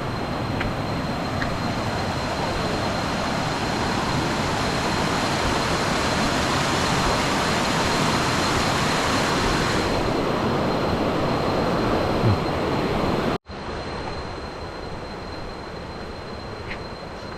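Waterfall water rushing and splashing in a steady loud roar. About two-thirds of the way through there is an abrupt cut, after which the rushing is quieter.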